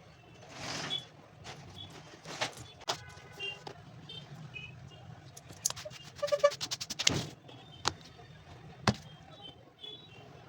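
Scattered sharp clicks and knocks, with a quick rattling run of clicks about six seconds in and a single sharp knock near the end, over steady background traffic noise.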